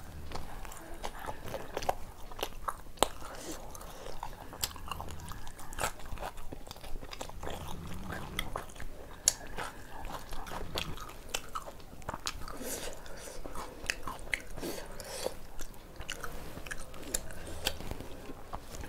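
Close-up eating sounds of a person chewing mouthfuls of tandoori roti and mutton curry eaten by hand: wet chewing with an irregular stream of sharp mouth clicks.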